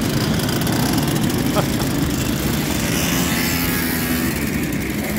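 Many Simson two-stroke mopeds riding past in a convoy, their small engines running together in a continuous mixed buzz.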